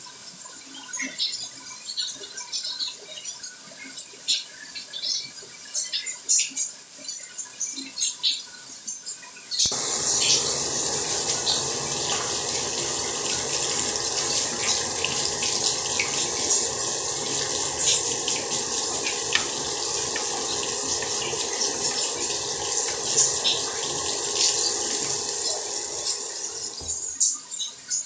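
Water with scattered small drips and ticks. About ten seconds in, a steady flow of running water starts suddenly with a strong hiss, and it eases off near the end.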